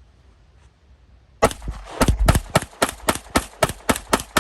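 Glock pistol mag dump: a quiet pause, then rapid shots starting about a second and a half in, at about four a second.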